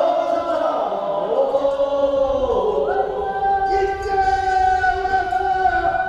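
Voices singing a Korean funeral bier-carriers' song (sangyeo-sori) in long held notes, the pitch gliding early on and shifting to a new held note about halfway through.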